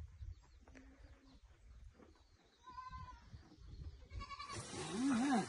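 Bleating livestock: three bleats in the second half, the last one lower, wavering and the loudest, over a low outdoor rumble.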